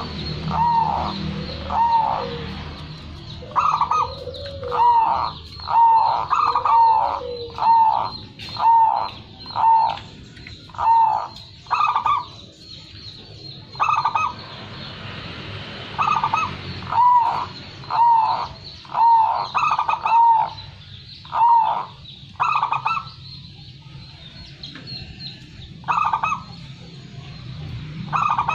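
Zebra dove (perkutut) cooing: a long run of short, arched coos at about one a second, with lower notes among them in the first few seconds and a couple of short pauses.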